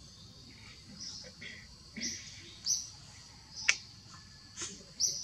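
Birds chirping: several short, high chirps at irregular spacing, with one sharp click about three and a half seconds in.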